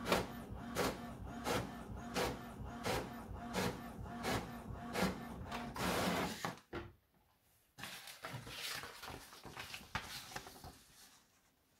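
HP OfficeJet Pro inkjet all-in-one printing a copy: the print carriage sweeps back and forth about three times every two seconds over a steady motor hum, ending in a longer whir as the page is fed out about six seconds in. Later the printed paper sheet rustles as it is handled.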